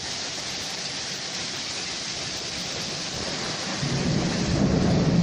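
Heavy rain pouring steadily on a road and balcony. About four seconds in, a deep rumble of thunder swells and grows louder.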